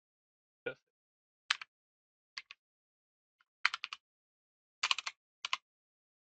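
Computer keyboard typing in short bursts of a few rapid keystrokes, about six bursts with dead silence between them.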